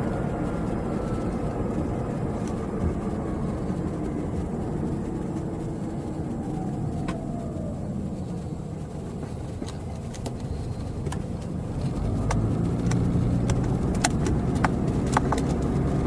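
Car driving, heard from inside the cabin: a steady rumble of engine and road noise. The low engine hum grows firmer about twelve seconds in, and a few light clicks come near the end.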